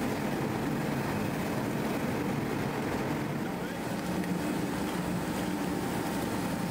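Rotational moulding machine running steadily with a constant hum, while water from a hose splashes and hisses onto its hot steel tank mould to cool it.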